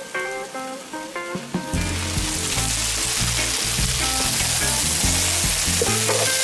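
Diced potatoes and onions sizzling as they fry in an electric skillet. The sizzle sets in loudly a little under two seconds in and holds steady, with background music throughout.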